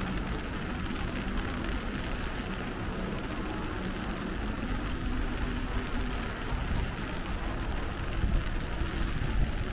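Steady street ambience in rain: an even hiss of rain with a low rumble underneath.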